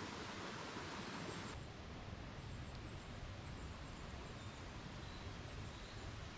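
Faint steady outdoor background hiss with a few faint, short high chirps; the hiss changes abruptly about one and a half seconds in.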